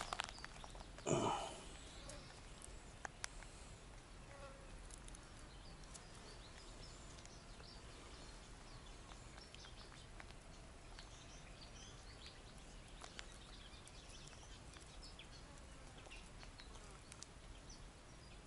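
Quiet woodland background with faint mosquito buzzing and scattered small high chirps and ticks. A short louder rustle comes about a second in.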